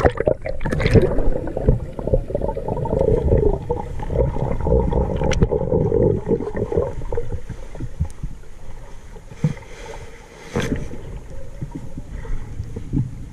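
Muffled underwater water movement and gurgling picked up by a submerged camera, with a few sharp knocks, the loudest about two-thirds of the way through.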